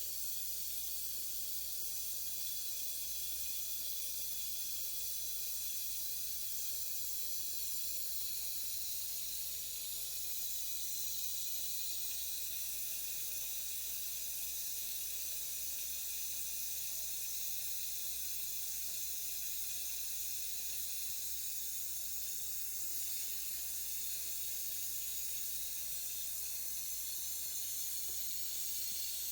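Shower running steadily: an even, unbroken hiss of water spray.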